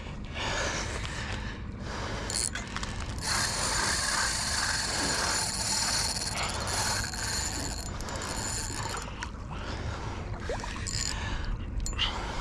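Penn Spinfisher spinning reel being cranked, its gears whirring steadily as the jig is retrieved; the whir is strongest from about three to nine seconds in.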